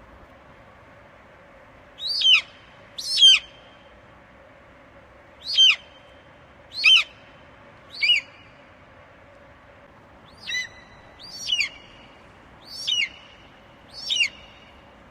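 Eagle calling: nine short, high-pitched cries, each sliding downward in pitch, spaced one to two seconds apart.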